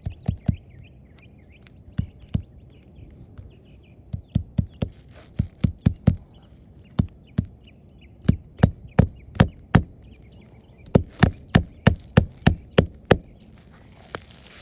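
Hammer driving roofing nails through an asphalt shingle into the roof deck: sharp blows in short runs of two to six with pauses between, as nails are set back into the shingle's tar strip. The runs come faster and closer together in the second half.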